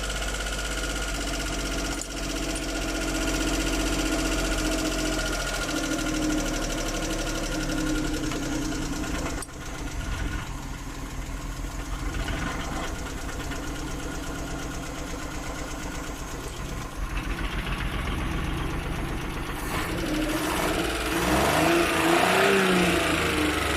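Suzuki F6 three-cylinder engine running rough and misfiring, a sign of the carburettor problem being chased. About nine seconds in it dips and then runs with an uneven pulse, and near the end it is revved, its pitch rising and falling.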